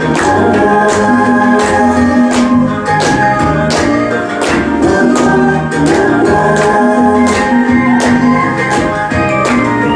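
Recorded backing track of upbeat music with a steady beat and bass line, played from a media player.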